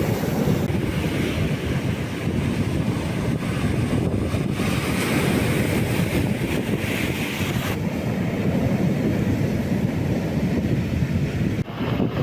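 Strong wind buffeting the microphone with a constant low rumble, over stormy sea surf breaking and washing up the beach. A brighter rush of surf swells about five seconds in.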